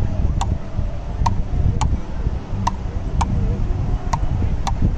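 Frescobol rally: a ball cracking off solid Fastball paddles, seven sharp hits with gaps alternating about half a second and about a second as the two players return it back and forth. A steady low rumble runs underneath.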